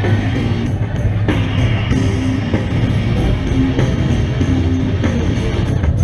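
Loud rock music with guitar and drums.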